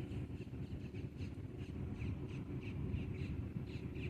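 A bird calling over and over in short calls, about three a second, over a steady low rumble.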